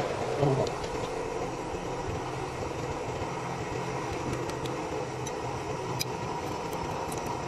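Metal lathe facing a steel compressor head plate, the cut ending about a second in. A steady machine hum carries on, with a few light metallic clicks near the end as the plate's holding bolt is handled.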